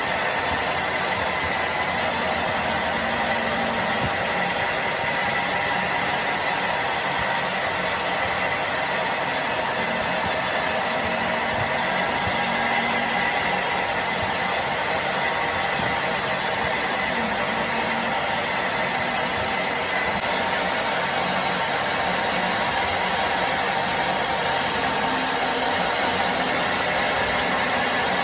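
A machine running steadily, with a constant whine over even mechanical noise.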